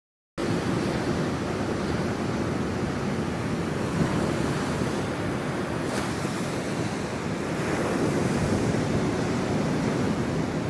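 Surf breaking on a sandy beach, a steady wash of waves cutting in abruptly just after the start, with wind buffeting the microphone.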